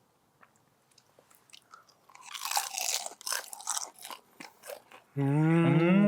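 Crisp pan-fried dumpling being bitten and chewed, with crunches and clicks starting about two seconds in. Near the end comes a louder, drawn-out hum that rises and then falls in pitch.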